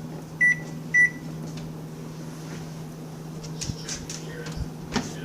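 Microwave oven keypad beeping as buttons are pressed to set the time: two short, high beeps about half a second apart, then a few light clicks and knocks, over a steady low hum.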